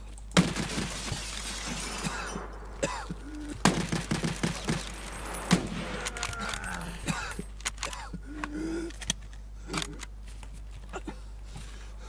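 A person coughing hard, two long noisy fits in the first half with short voiced gasps mixed in, then scattered short coughs.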